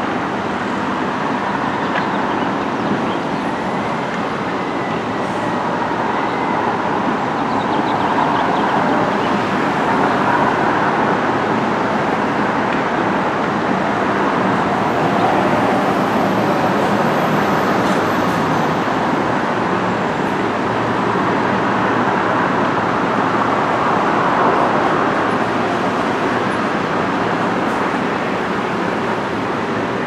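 Steady din of a construction site, with the engines of heavy equipment and trucks running together. It swells slightly partway through.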